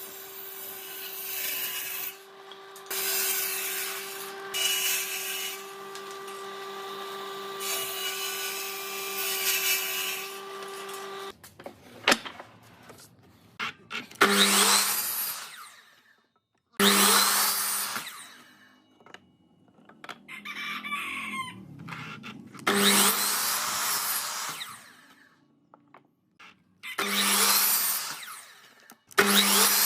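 An electric power tool working wood. Its motor runs steadily for about eleven seconds while cutting, then it is run in several short bursts of a second or two each.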